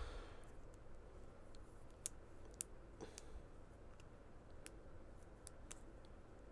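Faint, irregular clicks of a Clickers toy, a chain of snap-jointed plastic links, being twisted and bent by hand. The two sharpest clicks come about two seconds in.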